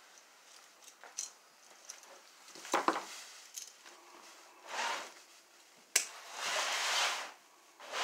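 Hand tools and wiring being worked at an electrical outlet: scattered clicks and small knocks of pliers and screwdriver on the outlet and metal box, with a few short rasping scrapes, the longest about two-thirds of the way through.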